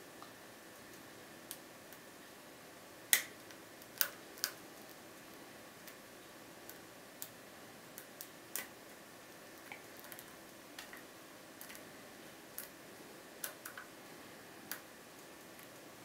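Lock pick and tension wrench working the pin stack of a five-pin GTV euro cylinder lock: irregular sharp metallic clicks, the loudest about three seconds in, over a faint steady hiss.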